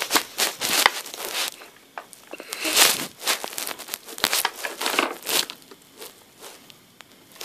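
Hands handling plush toys and plastic toy-playset pieces: irregular rustling with a few sharp clicks, busier in the first half and quieter after about five seconds.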